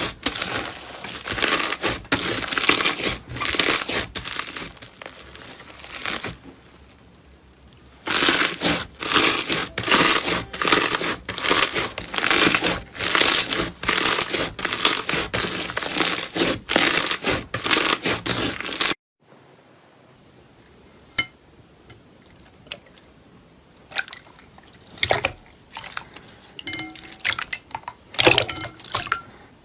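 Slime being kneaded and pressed by hand, crunching and crackling in repeated strokes about twice a second, with a short quieter lull around six seconds in. About two-thirds through it cuts off abruptly to a much quieter stretch of soft squishes and occasional sharp clicks.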